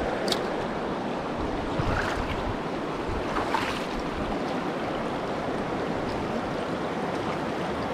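Steady rush of a mountain trout river flowing over rocks, an even water noise with no change in level.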